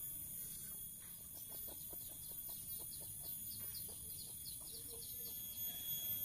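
A bird chirping: a rapid run of short high chirps, about five a second, lasting some four seconds, over a steady high-pitched electrical whine.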